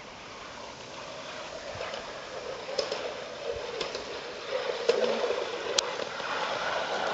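Pedal-powered recumbent rail trike rolling along a miniature railway track on metal wheels, growing louder as it approaches, with a sharp click about once a second.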